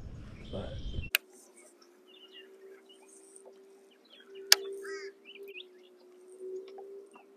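Faint birds chirping and calling now and then over a steady low hum, with a couple of sharp clicks.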